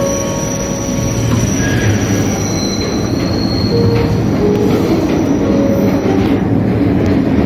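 Kawasaki-built New York City subway car running, heard at the end door between cars: a steady rumble with wheels squealing on the rails, several thin squeal tones at different pitches coming and going.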